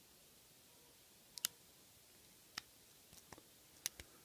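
Faint, scattered clicks of a short hook pick and tension tool working the pin stack inside an ABUS Rock 83/55 pin-tumbler padlock during hand picking. There are about six clicks, a close pair about one and a half seconds in being the loudest.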